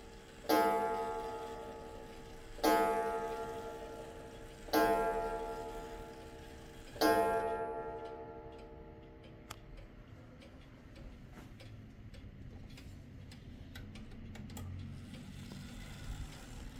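Kienzle pendulum wall clock striking the hour on its two-rod gong: four ringing strokes about two seconds apart, each dying away slowly, then the movement ticking softly once the striking stops.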